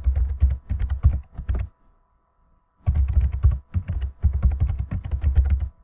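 Typing on a computer keyboard: rapid runs of keystrokes, a burst for about a second and a half, a pause of about a second, then a longer burst of typing.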